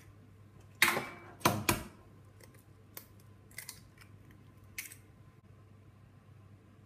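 Eggs being cracked into a metal muffin tin: three sharp cracking knocks about a second in, followed by a few lighter clicks.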